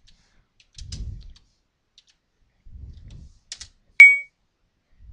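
Computer keyboard typing: scattered key clicks with soft low thumps. About four seconds in comes one sudden, very loud, short high-pitched tone that dies away within a fraction of a second.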